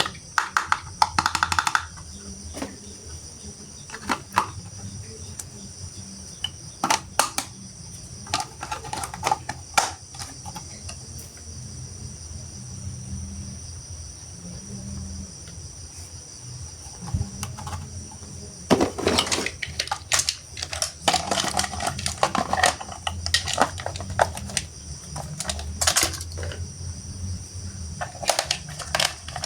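Hard plastic toy train-set parts clicking and clattering as they are handled and fitted together, in irregular bursts that are busiest about two-thirds of the way through. A faint steady hum runs underneath.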